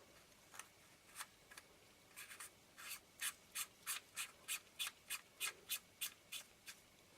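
Faint, short scraping strokes of a threaded lens part being turned by hand on its mating thread. A few irregular scrapes come first, then a steady run of about three a second that stops shortly before the end.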